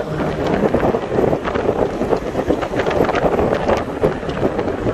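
Wind buffeting the microphone of a moving car, a loud, gusty rush over the car's road noise.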